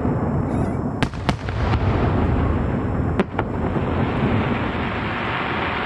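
Aerial fireworks display: a continuous rumble of shell bursts, with sharp bangs about a second in, again just after, and another a little past three seconds.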